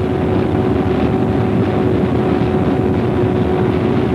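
Racing car's engine held at one steady high note at full throttle on a long straight, heard from on board, under heavy wind and road noise.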